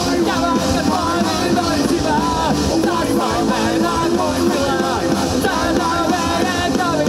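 Live rock band playing: electric guitars and drums, with a singer's vocals over them.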